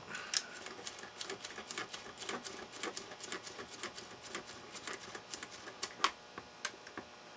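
Rotary switches of a Heathkit IT-18 transistor checker clicking irregularly, several times a second, as they are turned back and forth by hand to work freshly sprayed contact cleaner into their tarnished contacts. A louder click comes just after the start and another about six seconds in.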